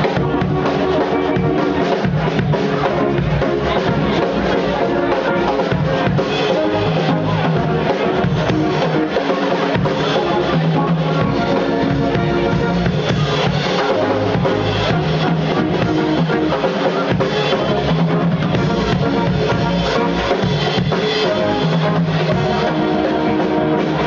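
Live band playing a steady groove: drum kit keeping the beat under saxophone and trombone, with low bass notes moving underneath. Loud and dense throughout, recorded from the audience.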